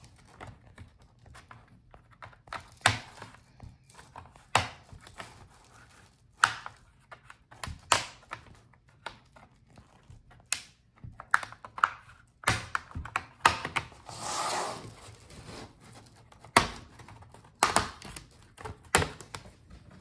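Bottom case of a Lenovo IdeaPad Flex 5 laptop being pried off with a plastic pry tool: sharp plastic clicks and snaps, irregularly spaced, as the retaining clips release around the edge, with a short stretch of scraping about two-thirds of the way through.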